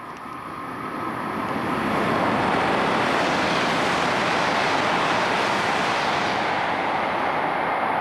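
Kyushu Shinkansen bullet train passing through the station at speed without stopping: a rushing noise of air and wheels that swells over the first two seconds, then holds steady and loud.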